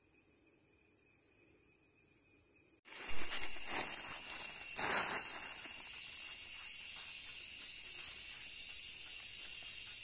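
Jungle insect chorus led by a shrill, steady cicada drone, which comes in abruptly about three seconds in after a faint high hum. A few brief knocks and rustles sound just after it starts.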